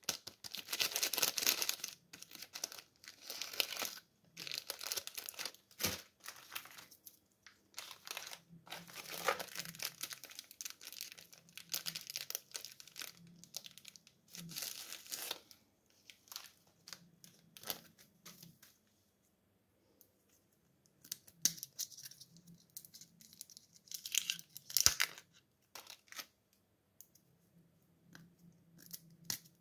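Plastic candy wrappers crinkling and tearing in irregular bursts as sweets are handled and unwrapped, with a short silent pause about two-thirds of the way through.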